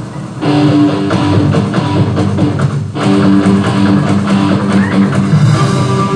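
Background music with sustained instrumental notes, coming in about half a second in and briefly dropping out just before three seconds in.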